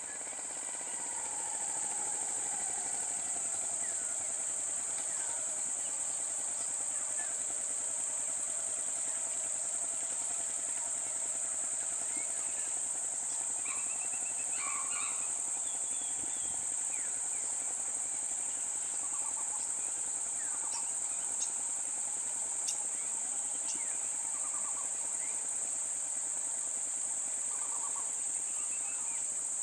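A steady, high-pitched insect drone, such as cicadas in roadside forest, with a low engine hum underneath whose pitch falls over the first few seconds and then holds steady, like a vehicle slowing to idle.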